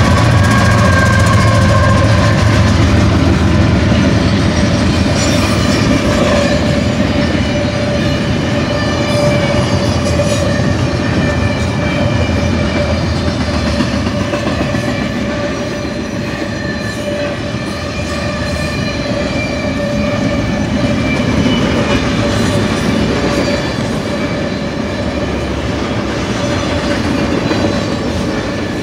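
A BNSF double-stack container train passing close by. In the first few seconds the trailing GE diesel locomotives rumble past; then the container cars roll by with steady wheel-and-rail noise and a constant ringing tone.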